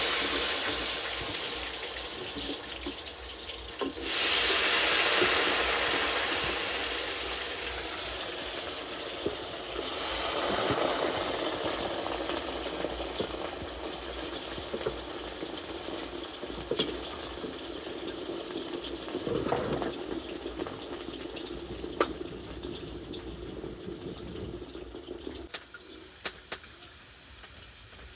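Hot oil sizzling as food deep-fries. The sizzle flares up suddenly about four seconds in, and more weakly about ten seconds in, each time dying down slowly. A few light clicks and pops come later on.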